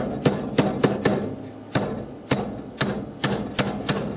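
A brass-faced hammer tapping on the steel of an Albrecht drill chuck and its Morse taper arbor, seating the collar: about ten light, sharp metallic taps at an uneven pace, each with a short ring.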